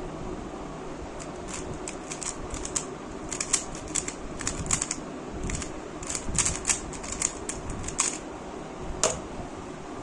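A plastic 3×3 speed cube being turned fast: a rapid, irregular run of clicking layer turns for about seven seconds, then a single louder knock near the end, over a steady background hiss.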